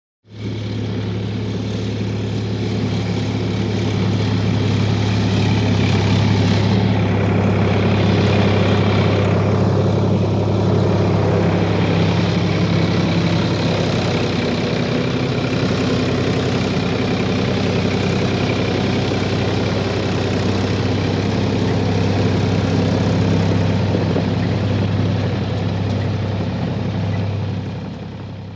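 A heavy engine running steadily at a constant speed, a deep drone with a strong low hum and faint shifting hiss above it. It fades out near the end.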